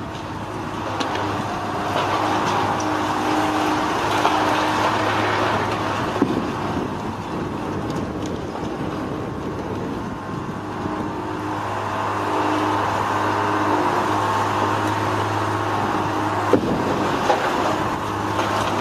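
Heavy demolition machinery's diesel engine running steadily, with a few sharp knocks heard now and then.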